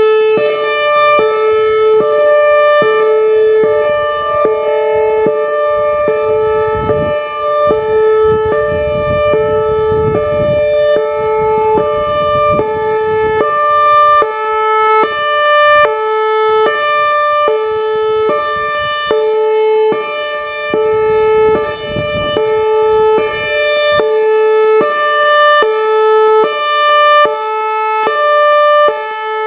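Whelen Vortex electronic outdoor warning siren sounding its hi-lo tone, switching back and forth between a high and a low pitch over a steady lower note. It is loud, and its loudness rises and falls in a regular cycle.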